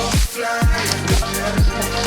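Electronic dance music with a steady kick drum about twice a second under held synth notes; the bass drops out briefly near the start.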